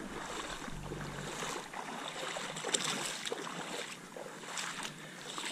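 Shallow water sloshing and splashing as someone wades toward the sand, with a few sharp ticks about three seconds in.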